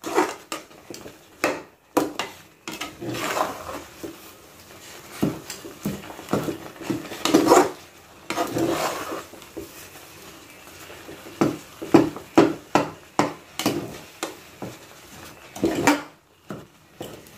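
A spoon or ladle scraping and knocking against an aluminium kadai as pineapple semolina kesari is stirred, in irregular strokes with sharp clinks.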